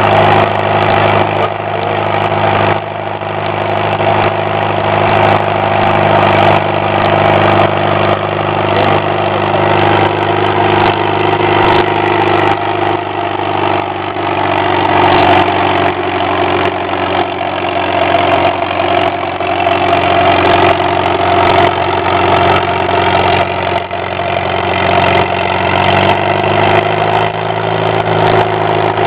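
Farmall B tractor's four-cylinder engine running steadily under load, driving a Prony brake by flat belt from its belt pulley.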